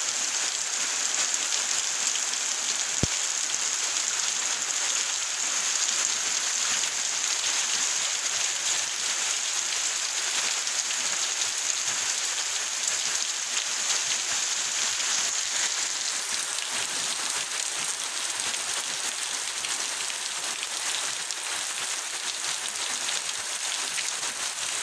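Rain falling steadily, an even hiss with one sharp tick about three seconds in.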